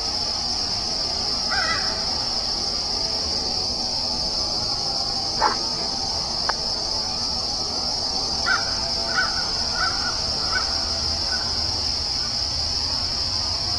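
Forest ambience: a steady high-pitched insect chorus, with a crow cawing a run of about five calls in the second half and a few single calls earlier.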